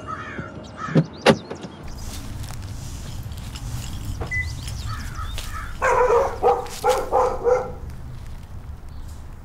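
A dog barking about five times in quick succession, over a low steady outdoor rumble. Two sharp clicks come about a second in.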